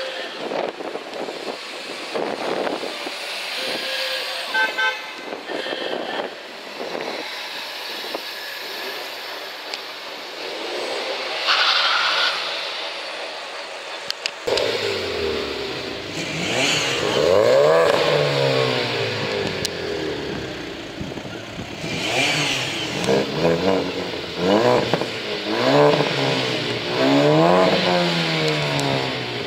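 Car engines on a street: passing traffic with a brief horn toot about five seconds in, then about halfway through a car engine revving hard, its pitch climbing and dropping again and again as it accelerates away.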